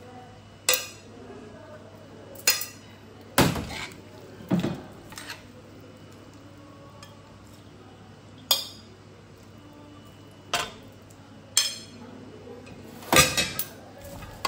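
Metal tongs and a spoon clinking and knocking against a steel wok and plates as stir-fried noodles are served out. There are about ten separate sharp strikes with gaps between them, the loudest a little over three seconds in and near the end.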